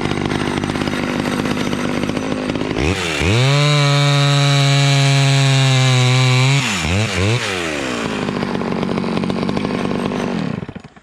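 Vintage Stihl 011 two-stroke chainsaw running. It revs up to full throttle and holds it steady for about three seconds, drops back with a couple of quick blips, runs on, and shuts off near the end.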